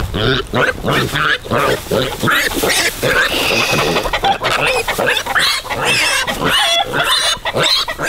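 Kunekune piglets squealing in a rapid, unbroken run of short, shrill cries: the distress squeals of piglets being grabbed and handled.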